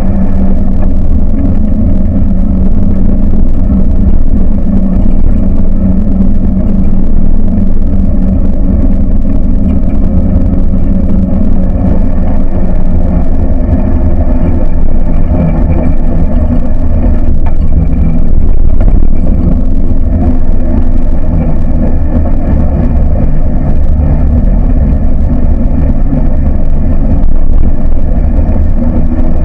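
A buggy's engine running steadily and loudly while it is being driven, its pitch shifting a little.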